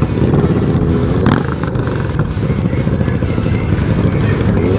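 Motorcycle engines running at low road speed: the Yamaha XJ6's 600 cc inline-four, with a cruiser motorcycle's engine running alongside. A steady low engine rumble with a brief clatter about a second in.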